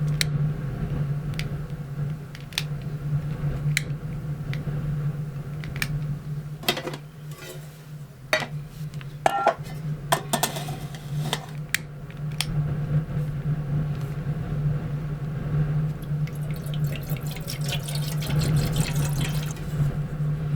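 Water running and being poured in a kitchen, with scattered sharp clinks and knocks of utensils and crockery over a steady low hum.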